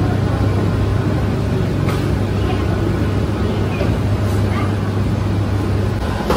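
Bakery dough divider and conveyor line running, a steady low hum under a continuous mechanical noise, with a couple of brief clicks.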